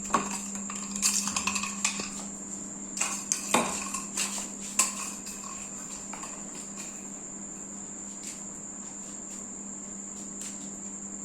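Light clicks and knocks of a kitten playing with a toy, scattered through the first six or seven seconds, over a steady high-pitched whine and a low hum.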